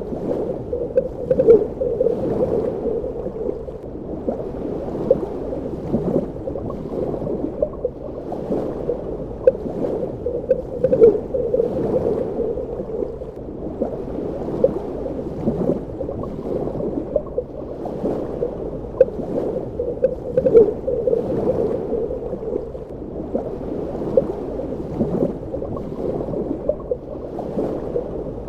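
Underwater ambience: a steady, muffled wash of moving water with frequent small bubbling and gurgling pops, a few of them louder.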